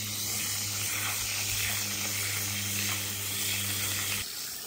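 Water from a garden hose pouring onto loose potting mix in a fabric grow bag, a steady splashing hiss, with a steady low hum underneath. Both drop away somewhat about four seconds in.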